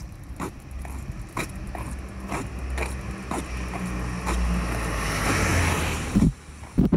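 Footsteps at a steady walking pace, about two a second. Over the last few seconds a low rumble with a hiss swells, then cuts off abruptly near the end, followed by a couple of sharp thumps.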